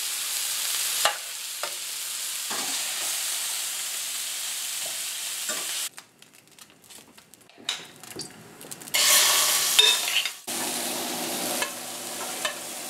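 Cubes of pork and beef sizzling as they brown in a hot stainless-steel frying pan, with a metal utensil clicking and scraping against the pan as the meat is turned. The sizzle drops away about six seconds in and flares up loud again around nine seconds.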